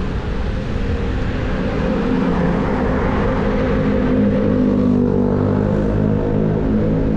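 A car overtaking close by and pulling ahead: a steady engine hum with tyre noise on the wet road, swelling as it passes about three seconds in. Under it, a constant low rumble of wind on the microphone.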